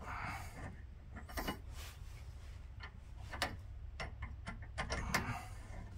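Scattered light clicks and taps of a DEWHEL folding screw-on tow hook being handled and turned by hand in its threaded bumper mount.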